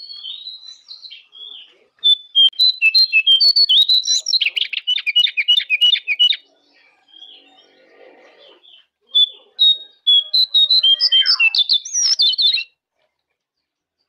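Jongkangan songbird singing: two loud runs of fast, chattering whistled notes, one from about two seconds in to about six, the other from about nine seconds in, cutting off about a second before the end.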